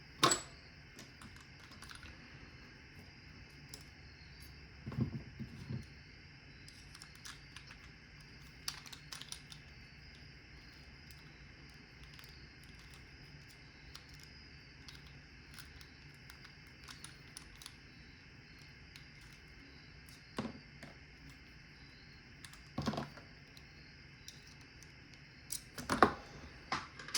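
Sparse small clicks and taps of tiny metal padlock parts, such as pins and springs, being handled and set down while the lock is taken apart, a few sharp ones several seconds apart.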